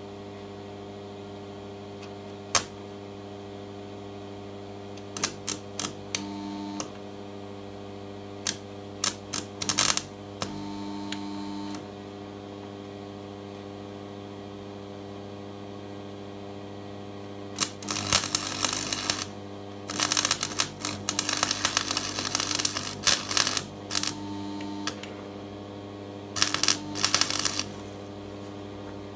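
Electric arc welding on a broken steel frame part: a crackle in short bursts, then longer runs over the second half, with a steady hum from the welder underneath.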